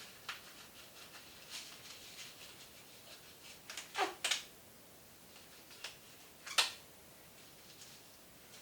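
Black neoprene gloves being pulled onto the hands: a scattering of short rubbery snaps and rustles, loudest about four and six and a half seconds in.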